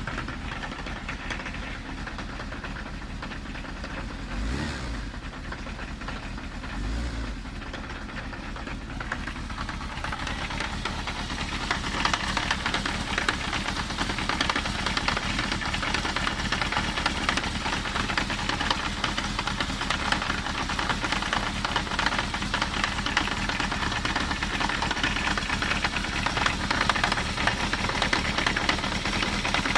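Kawasaki Zephyr 750's air-cooled inline-four engine running with a clattering rattle (kata-kata), the abnormal noise that comes from the clutch outer housing and its dampers. The clatter grows louder about a third of the way in, and there are two dull low thumps a few seconds in.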